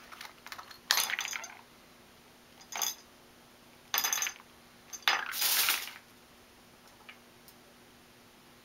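A budgerigar knocking and pushing small plastic and paper objects about on a countertop: four short bursts of clattering and rattling, the last and longest about five seconds in.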